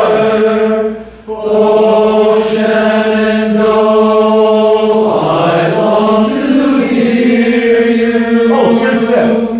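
Men's barbershop chorus singing a slow phrase together on one line, with long held notes and a short breath break about a second in.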